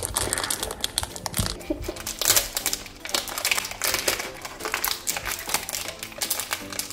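Clear plastic packaging crinkling and rustling as it is handled and peeled, with many small irregular crackles. Background music plays under it.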